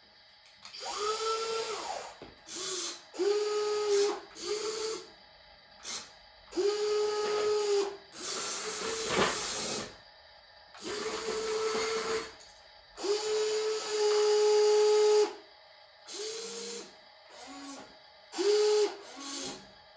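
Toy remote-control excavator's electric motors whining in about ten bursts of half a second to two seconds, starting and stopping as the boom, arm and bucket move. Around the middle the bucket scoops grain from a box with a rattle and clicks.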